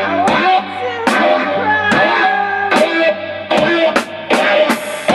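Live rock band: a Squier Stratocaster-style electric guitar and a drum kit playing, with a steady beat of drum hits and a voice singing over them.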